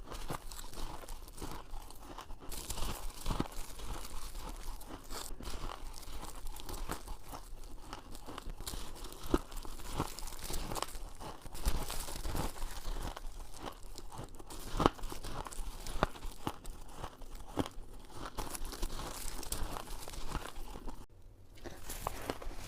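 Shaved ice being bitten and chewed close to the microphone: a steady run of crisp crunches, with a short pause near the end.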